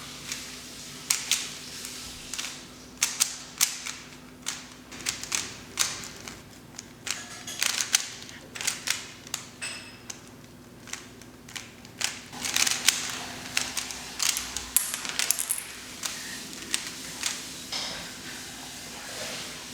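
Rubik's cube being turned fast by hand: irregular plastic clicks and clacks of the layers snapping round, coming in quick clusters.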